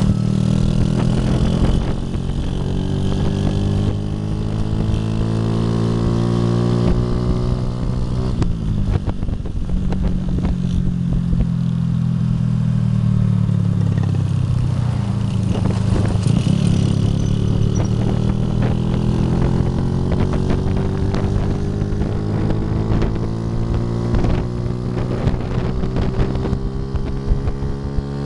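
Small motorcycle engine running while riding, heard from on board. Its pitch climbs and falls with the throttle: a slow climb, a sharp drop about eight seconds in, a dip around fifteen seconds, then a long steady climb through the second half.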